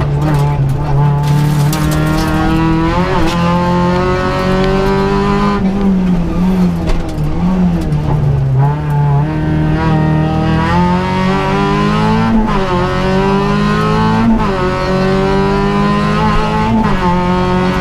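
Peugeot 206 RC rally car's engine, heard from inside the cabin, driven hard. The revs climb and then drop over and over as it is pushed through gear changes and corners.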